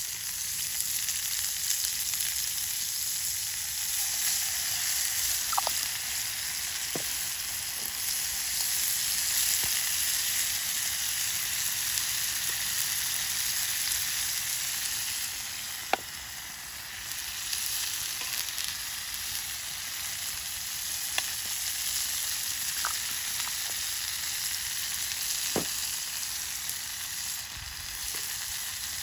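Food frying in a pan, sizzling steadily, with a few sharp pops scattered through it.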